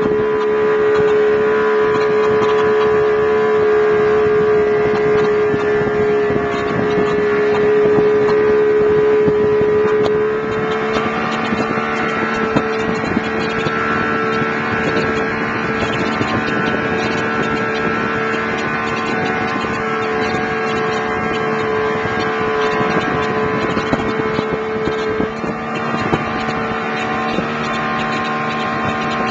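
Outboard motor running steadily at towing speed, a loud, even engine note; about ten seconds in its pitch steps up slightly and it gets a little quieter.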